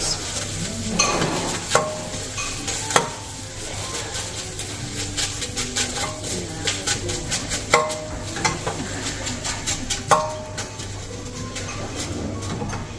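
A stick stirring and knocking in a large bowl of liquid nitrogen, freezing a poured cream: a steady hiss of the boiling nitrogen under frequent clicks and scrapes, with a few harder knocks against the bowl that ring briefly.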